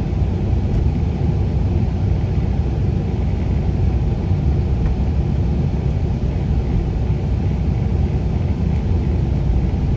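Steady low rumble of a vehicle driving along a road, with engine and tyre noise heard from inside the cabin.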